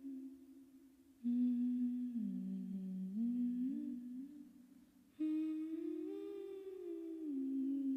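A wordless hummed melody, gliding in small steps from note to note, in two phrases that enter about a second in and again about five seconds in, each fading away.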